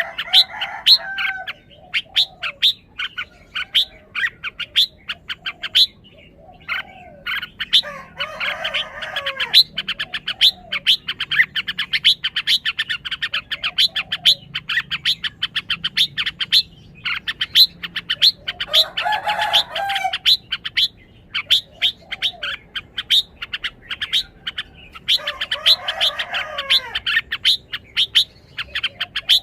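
Red-whiskered bulbul singing short, bubbly warbled phrases four times, with short lower notes between. Over it runs a near-constant stream of fast, high, short chirps.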